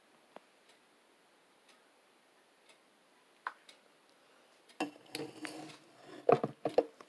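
Sparse faint clicks, then about five seconds in a close cluster of louder clicks and knocks, like small objects being handled and set down.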